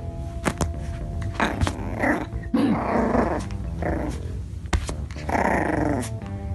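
Lhasa Apso puppy growling in play, in a few rough spells: a longer one a little before the middle and another near the end.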